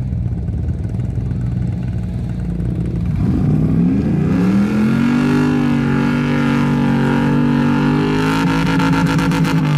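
GMC Jimmy's engine idling, then revving up sharply about three seconds in and held at high revs as the truck pulls away across the sand.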